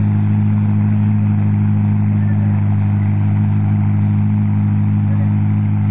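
An engine idling steadily at a constant low pitch.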